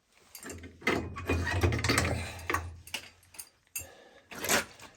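Irregular metal clicks, clanks and rattles of hand tools and furnace parts being handled, loudest over the first half and again near the end.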